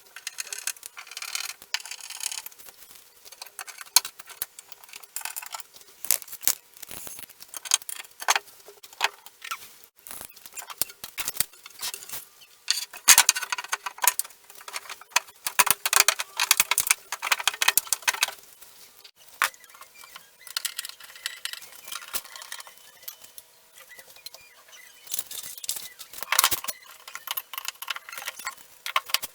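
Flat-pack desk assembly: irregular hard clicks, clinks and knocks of parts and small fittings being handled, with stretches of rustling, busiest in the middle.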